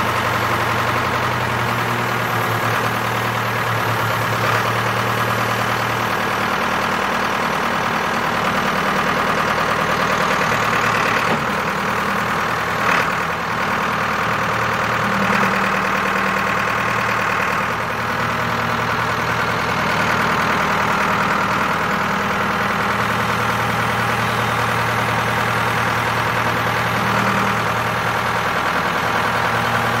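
Ford 675D backhoe loader's diesel engine running steadily while the loader hydraulics raise the front bucket and lower it again. The engine note shifts about a fifth of the way in and settles back near the end.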